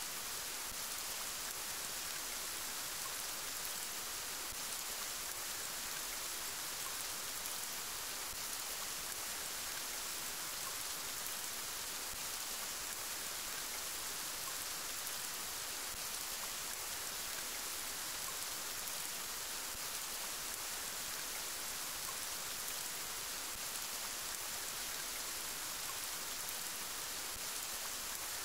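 Steady rain, an even hiss of many fine drops that holds constant throughout.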